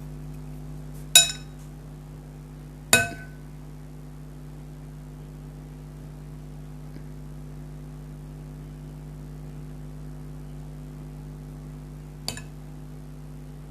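Tableware clinking three times as it is handled: two sharp ringing clinks about two seconds apart, then a fainter one near the end, over a steady low hum.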